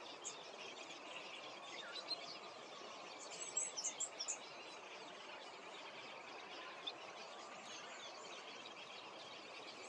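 Faint outdoor ambience: a steady hiss with scattered small birds chirping, and a short run of quick, high chirps about three and a half seconds in.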